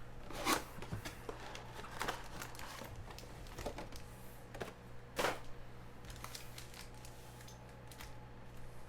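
Sports trading cards being handled at a table: a scattering of short swishes, slides and taps, several seconds apart, over a steady low hum.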